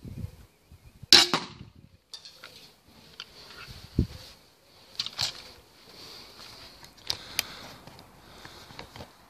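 A 160-pound crossbow fired once about a second in: a single sharp, loud snap as the string and limbs release. Smaller clicks and knocks follow.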